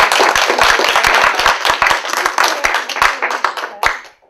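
Audience applauding: dense clapping that tapers off and stops about four seconds in.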